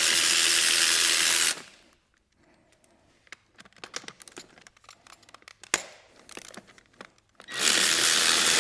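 Cordless battery-powered ratchet with an extension running steadily as it backs out a starter mounting bolt. It stops about a second and a half in, light clicks and taps follow as the bolt and tool are handled, and the ratchet runs again near the end.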